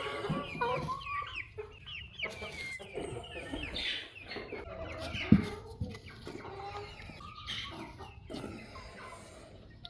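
Backyard hens clucking over and over in short calls, with one sharp knock about five seconds in.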